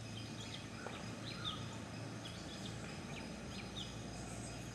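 Outdoor ambience: a steady hiss with a low hum, and short high chirps of birds calling every second or so.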